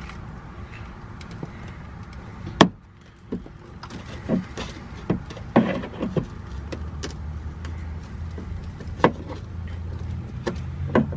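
Scattered clicks and knocks of a metal tool working loose the plastic retainer clips and bolts on an SUV's rear mud flap, over a low steady hum that grows from about six seconds in.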